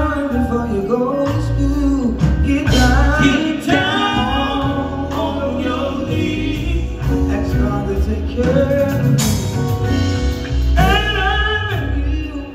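Live gospel song: male singers with bending, sliding sung notes over a band with a strong low bass line.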